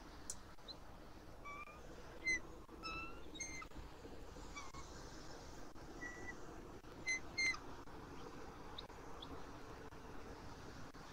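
Bald eagles chirping at the nest: about eight short, high, slightly gliding chirps, singly and in pairs, the loudest about two seconds and seven seconds in.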